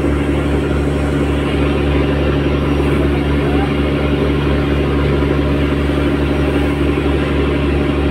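Fishing boat's inboard diesel engine running steadily at a constant low drone, heard close on board, with water rushing past the hull.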